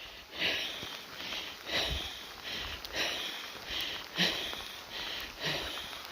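Footsteps on a wet gravel trail at a steady walking pace, about three steps every two seconds, each a short scuffing crunch.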